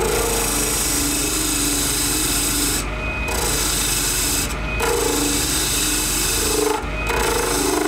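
A turning chisel cuts a spinning hand-poured acrylic resin duck-call blank on a wood lathe, making a steady scraping cut over the lathe motor's hum. The cutting noise breaks off briefly three times.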